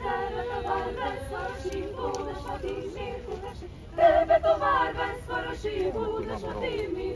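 Small choir of carolers singing a cappella in men's and women's voices; the singing swells noticeably louder about four seconds in.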